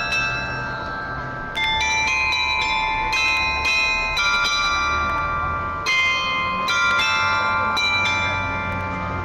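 Bell-like chimes playing a slow melody: struck tones ringing on and overlapping, a new note about every half second to second, over a low steady hum.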